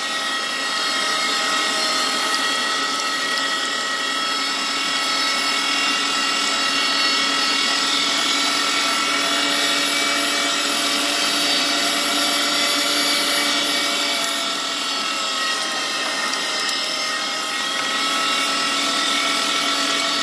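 Electric meat grinder's motor running steadily with a whine, grinding boneless chicken thighs through its finest plate.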